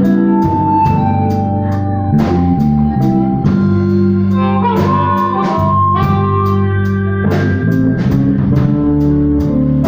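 Blues band playing an instrumental passage: a drum kit keeps a steady beat of about two hits a second under a bass line, while a lead instrument plays held melody notes.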